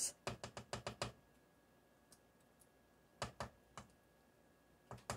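Metal wire whisk clicking against the side of a saucepan while stirring thick cheese sauce: a quick run of about seven clicks in the first second, a few more around three seconds in, and a couple near the end.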